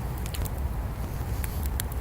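Wood bonfire crackling, with a few sharp pops over a steady low rumble.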